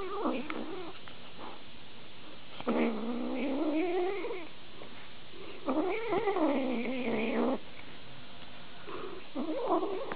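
A grey kitten making drawn-out, wavering yowls while it eats dry food from a bowl, four calls in all. The two in the middle each last about two seconds, and the last is shorter.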